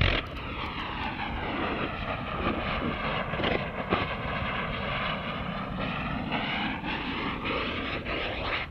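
Roar of a 6-inch Q8600 rocket motor still burning after it failed catastrophically at launch: a steady rushing noise whose tone sweeps slowly down and back up, with scattered crackling pops and a sharp crack near the end.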